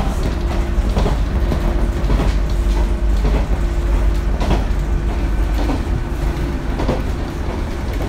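Cabin of a diesel railcar running along the line: a steady low rumble with a constant drone, and the clack of wheels over rail joints about once a second.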